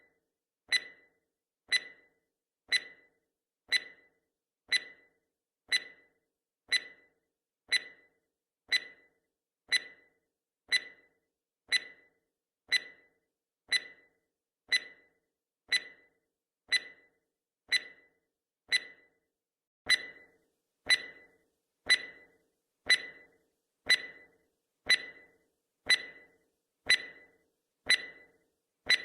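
Countdown timer sound effect ticking once a second: short, sharp, high ticks that die away at once, a little louder from about twenty seconds in.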